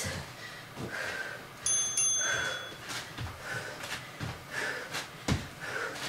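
Heavy rhythmic breathing from a woman exercising, with the low thuds of her feet landing on an exercise mat about once a second as she starts in-and-out squat jumps. A short high beep sounds about two seconds in.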